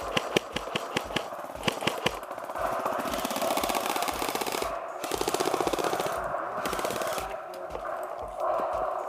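Airsoft electric guns firing: a string of quick single shots, then several long full-auto bursts of rapid clicking cracks.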